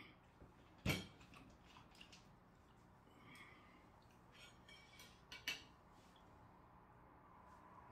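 Quiet room broken by a few sharp knocks and clinks of tableware: a bottle set down hard on the table about a second in, and chopsticks clicking against a plate around five and a half seconds.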